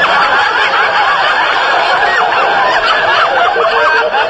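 Studio audience laughing: a large crowd's laughter going on steadily, heard on an old radio transcription recording with a dull, lo-fi top end.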